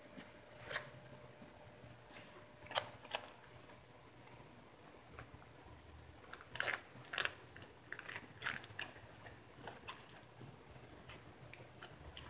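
Four-week-old puppies mouthing and chewing at a boot and a jeans leg: faint, scattered clicks and scuffles, a few a little louder around the middle.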